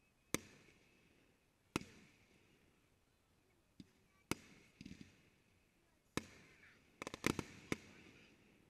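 Aerial firework shells bursting: sharp bangs a second or two apart, each trailing off briefly, then a quick run of several bangs near the end.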